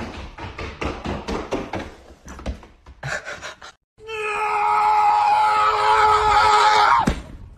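A quick run of sharp clicks or taps for about two and a half seconds, then, after a brief silence, a loud, long, steady cry that lasts about three seconds and drops in pitch as it ends.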